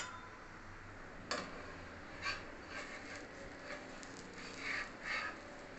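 Faint, scattered soft scrapes and light taps of a spoon working masala onto an egg dosa in the pan.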